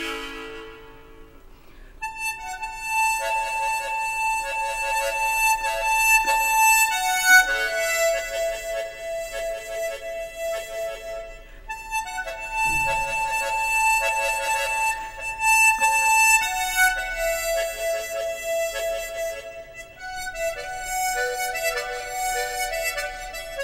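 Harmonica playing a slow melody of long held notes in phrases. A phrase starts about two seconds in after a short, almost quiet gap, and there are brief breaths between phrases later on.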